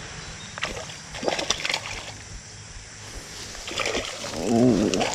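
A hooked tarpon splashing and thrashing at the water's surface as it is played on an ultralight spinning rod, a scatter of sharp splashes. Near the end a short wordless vocal exclamation is the loudest sound.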